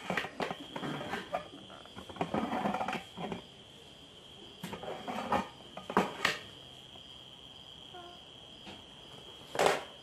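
Handling noise from setting up a camera and picking up a toy car's cardboard box: scattered knocks, taps and rustles, the loudest about six seconds in and again near the end. A steady high-pitched tone runs underneath.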